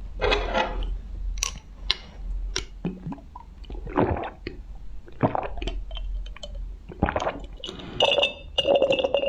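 Close-miked drinking: a run of separate gulps and swallows with wet mouth sounds, broken by short sharp clicks. A brief squeaky ringing tone comes about eight seconds in.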